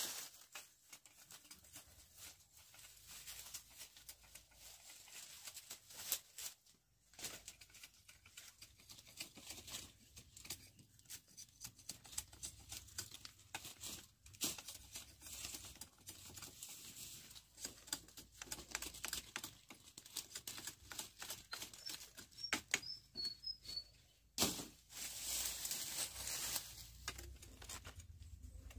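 Dry plant material rustling and crackling in irregular bursts as it is handled, with one sharper snap late on. A few faint bird chirps come through about three quarters of the way in.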